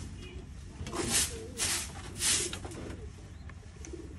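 Long-handled scraper rasping across a wooden loft floor in three strokes, scraping up pigeon droppings, while domestic pigeons coo.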